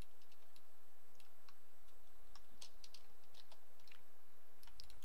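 Scattered light clicks of a computer mouse and keyboard, coming irregularly over a steady background hiss.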